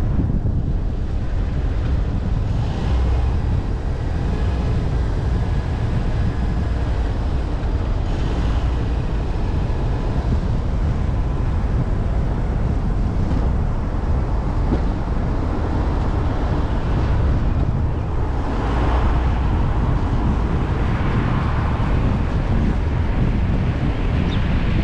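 Steady low rumble of vehicle and road noise, with wind buffeting the microphone.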